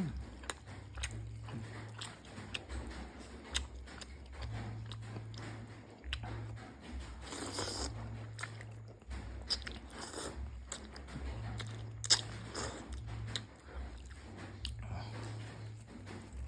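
A person eating pork noodle soup close to the microphone: irregular chewing, biting and mouth clicks, with a few short louder noisy moments, over a low hum that comes and goes.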